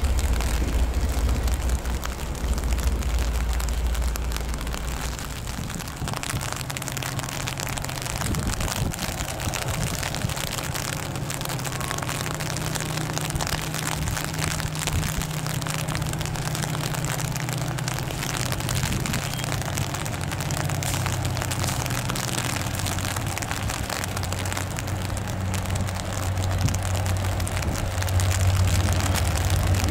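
Steady rain with a vehicle engine humming underneath. A deep rumble in the first few seconds gives way to a steadier low hum that grows louder near the end.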